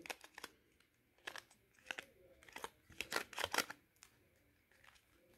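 Faint plastic clicks and rubbing as a Palm Treo 680's battery cover is fitted back on and pressed shut. Scattered single clicks, with a quick run of them about three seconds in.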